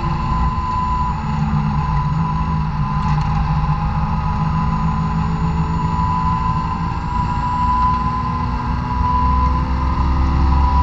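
Honda S2000's four-cylinder VTEC engine, breathing through a Fujisubo Power Getter exhaust, held at high revs on full throttle and heard from inside the cabin. The note stays steady, then climbs and grows louder near the end as the car accelerates in gear.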